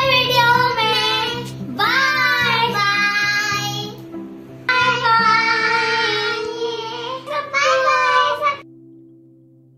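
A child's voice singing in phrases over steady backing music. The singing stops near the end, leaving a held tone that fades out.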